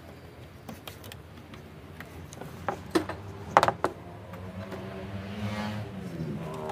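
Spring-clip latches on a truck's plastic air-cleaner housing snap open and the cover is pulled off, giving a few sharp clicks and knocks, the loudest about halfway through. In the second half a pitched hum with overtones builds in the background and dips in pitch near the end.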